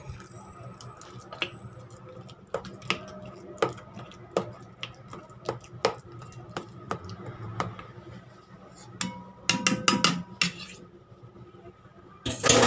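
Spoon clinking and scraping against a stainless steel bowl while stirring a thick mixture, a knock every half second or so, then a quick run of louder clinks about three-quarters of the way through.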